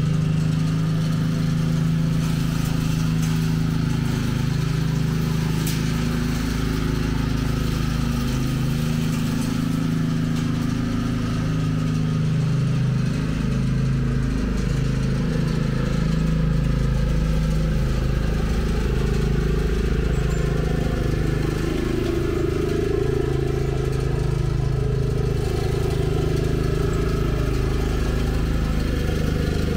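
Cub Cadet CC30H riding lawn mower's engine running steadily while mowing, its pitch wavering slightly as it moves across the lawn.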